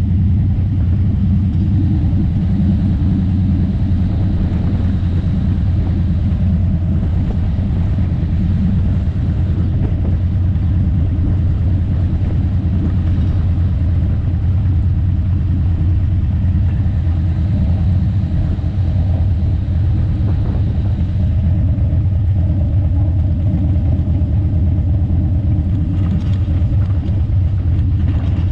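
Steady low rumble of a vehicle in motion, heard from a camera mounted on it: wind and road noise running on with no breaks.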